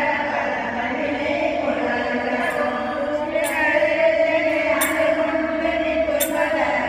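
A group of voices chanting a devotional hymn together in long held notes, with a short metallic clink about every second and a half in the second half.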